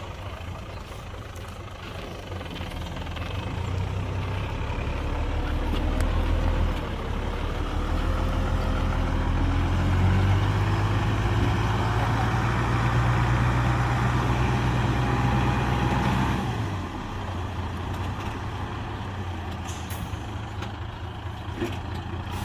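A heavy machine's diesel engine working under load: it builds up from about two seconds in, runs hard and steady, then drops back suddenly about three-quarters of the way through.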